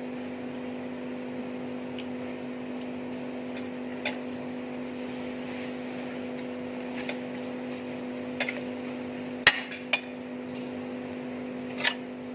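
Dishes and cutlery being handled: a handful of separate clinks and knocks, the loudest a sharp clatter about nine and a half seconds in, over a steady low hum.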